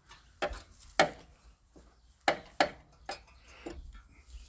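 Sharp metallic clicks and knocks of hand tools working on engine bolts, about six at uneven spacing, the loudest about a second in.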